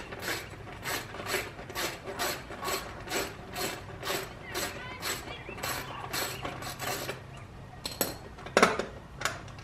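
Hand socket ratchet clicking steadily, about three clicks a second, as a bolt is backed out on the dirt bike's plastic shroud. The clicking stops about seven seconds in, followed by a few louder clicks or knocks near the end.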